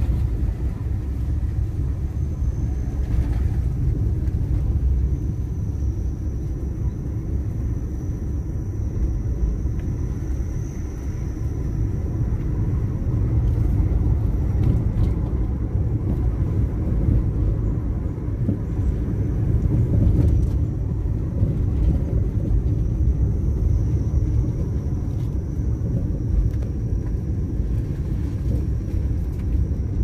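Car driving along a road, heard from inside the cabin: a steady low rumble of engine and road noise.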